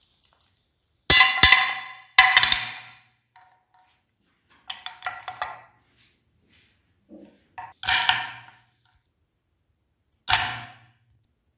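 Hard-candy lollipops dropped into a tray, each landing with a clattering clink that rings briefly. The drops come one or a few at a time, a couple of seconds apart, with a patter of smaller clicks midway.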